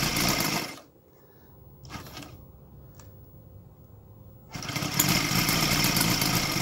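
Sidel 770 seven-cylinder model radial engine, running on gasoline with CDI ignition, stops about a second in. After a few quiet seconds it fires up again abruptly when the propeller is flipped by hand and runs steadily: an easy start.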